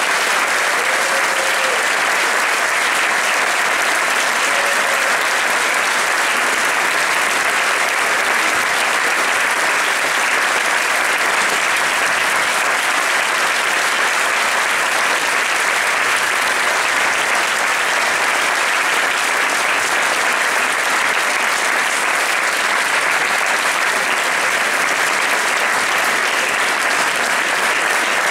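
Audience applauding, a dense, steady clapping that keeps up without a break.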